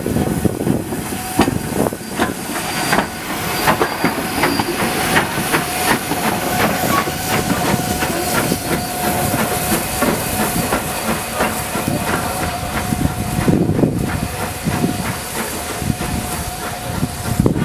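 Steam tank locomotives working at low speed: a rhythm of exhaust beats and wheel clicks over a steady hiss of steam from the cylinder drain cocks.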